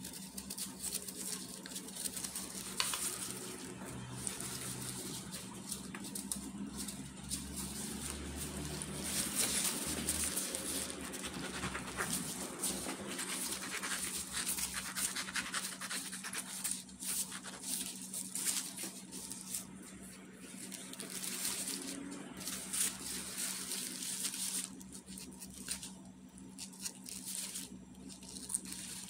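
Knife peeling and cutting fresh fruit by hand, apple and then mango, with the rustle and crinkle of disposable plastic gloves; an irregular run of scraping, slicing and small ticks. A faint steady low hum lies underneath.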